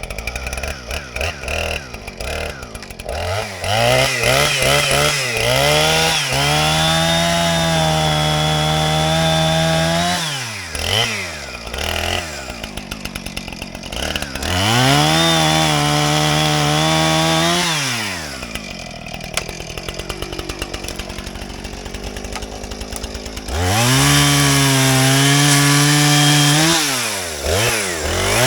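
Two-stroke chainsaw cutting firewood. It runs unevenly at first, then comes up to a high steady full-throttle pitch three times, each for about four seconds, dropping back to idle in between.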